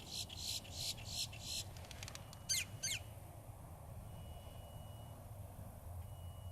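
A bird giving a rapid series of harsh, raspy calls, about three a second, then two sharp sweeping notes about two and a half seconds in.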